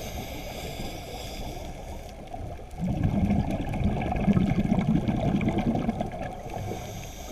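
Scuba diver's breathing through a regulator, heard muffled underwater: a soft hiss of inhaling, then exhaled bubbles gurgling for about three seconds from near the middle, and the hiss again near the end.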